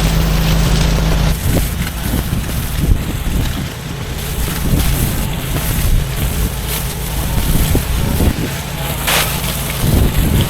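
Pressure washer running: a steady engine drone that, about a second and a half in, gives way to a rough, uneven rushing noise with irregular low rumbles.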